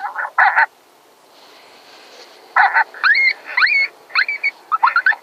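Yipping and squealing animal calls: short, high cries that sweep sharply upward, in quick runs, with a pause of about two seconds near the start.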